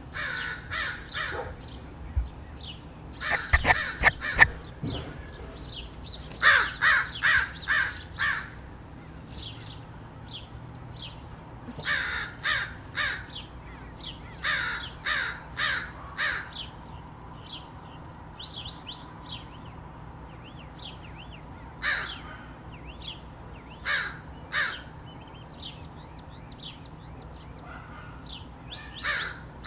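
American crows cawing in repeated bursts of three or four harsh calls, alarm calls raised at a gray fox close by. Fainter high chirps of a small bird come in later, and a few low thumps sound around four seconds in.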